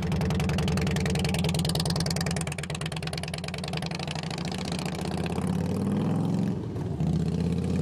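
Harley-Davidson V-twin motorcycle engine running with a steady, fast-pulsing exhaust note, its pitch shifting about five to seven seconds in as the bike pulls away.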